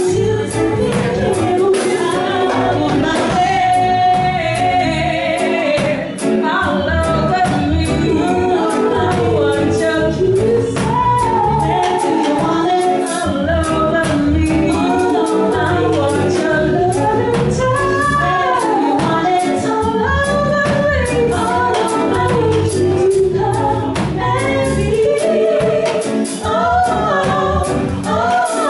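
A woman singing lead with women's backing harmonies over a live band with drums and electric guitar, a song played through without pause.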